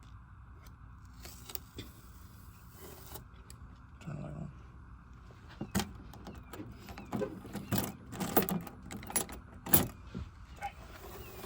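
Scattered clicks, taps and short scrapes from hands and tools working tint film onto a car tail light, busier and louder in the second half, over a faint steady hiss.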